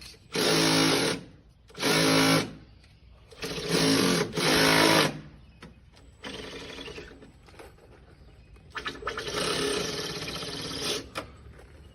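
Cordless DeWalt power shears buzzing in repeated runs as they cut through roofing, starting and stopping about five times, one run quieter than the rest.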